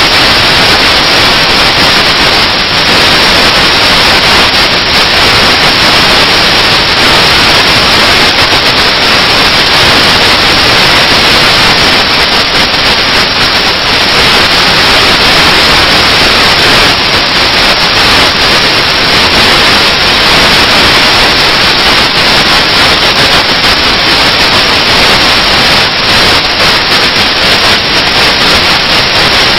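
Loud, steady hiss of static noise, even from low to high with no change and no other sound through it.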